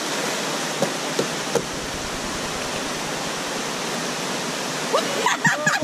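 Steady rush of fast-flowing river rapids, an even hiss of water, with a few faint knocks early on and voices starting near the end.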